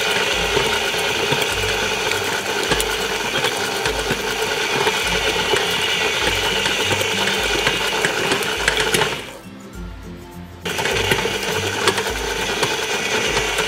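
KitchenAid Classic tilt-head stand mixer running with a steady motor whine, its flat beater kneading stiff babà dough until it develops gluten, with a low thump about once a second as the dough turns in the bowl. The motor stops for about a second and a half after the middle, then starts again.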